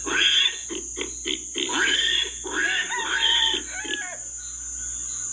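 Newborn piglets squealing in short repeated bursts as they jostle for teats while suckling at a sow, with lower grunts among them.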